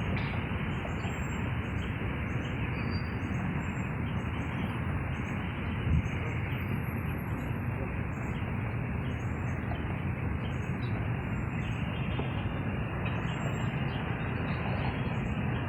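Steady rushing wind noise on the microphone, with a single thump about six seconds in and faint bird chirps above it.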